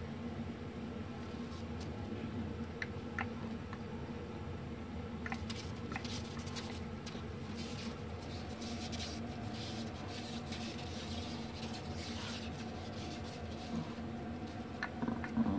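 Faint scratching and clicking of claws on tiles and wall, from a bearded dragon clambering against the wall and a small dog moving and sniffing beside it, over a steady low hum.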